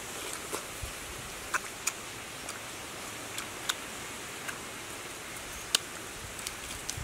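Steady outdoor hiss with scattered short, sharp clicks and ticks, the loudest near the end: mouth and hand sounds of eating soft fruit and handling it over a bamboo basket.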